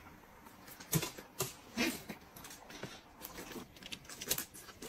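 Close-up eating sounds: a person pulling grilled lamb off a metal skewer and biting and chewing it, heard as a few short, sharp smacks and clicks.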